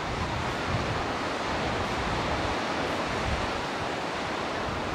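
Steady rushing of sea surf and wind, with wind buffeting the microphone in uneven low gusts.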